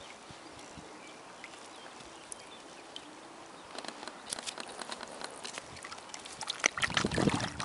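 Mute swans dabbling and snapping up bread at the water's surface: soft water noise at first, then from about four seconds in a run of small splashes and bill clicks, busiest and loudest near the end.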